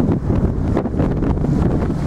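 Wind buffeting the camera's microphone: a loud, gusty low rumble that keeps swelling and dropping.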